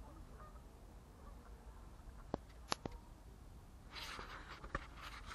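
Faint handling noise: a few short sharp clicks about two and a half seconds in, then a brief rustle near the end, over a low steady rumble.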